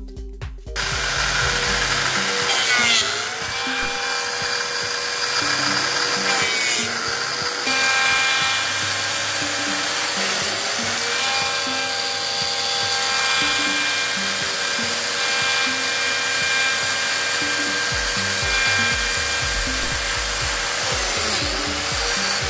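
A power tool running almost continuously, starting under a second in, its pitch dipping and recovering several times, over background music with a steady bass line.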